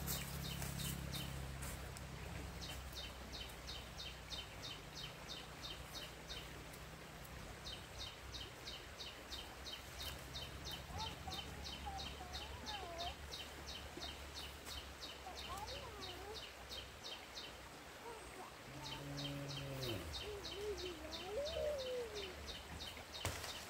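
Outdoor ambience: long runs of high, evenly spaced chirps, about four a second, pausing twice, over a steady low hum. Faint wavering calls come in toward the end.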